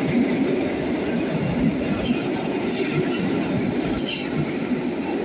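Locomotive-hauled passenger coaches rolling past along the platform, a steady rumble of wheels on the track with brief high-pitched wheel squeals scattered throughout. The last coach goes by near the end.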